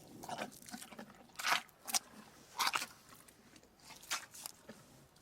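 Crunchy chewing: half a dozen crisp bites, irregularly spaced, with the loudest in the middle.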